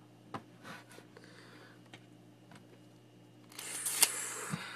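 Handling noise close to the phone's microphone: a few soft clicks, then, near the end, a louder rustle lasting about a second with one sharp click in it and a dull thump just after.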